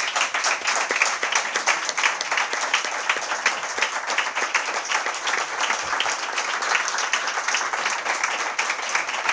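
A roomful of people applauding: many hands clapping at a steady level.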